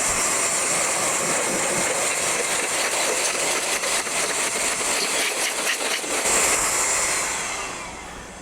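Steady rush of air from a blower blowing built-up pollen and dust out of an open mining-rig chassis. It swells briefly about six seconds in, then tails off near the end.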